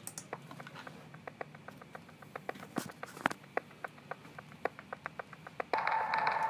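Intro sound effects: a run of short, irregular clicks and ticks, several a second, over a faint low hum, with a steady electronic tone coming in near the end.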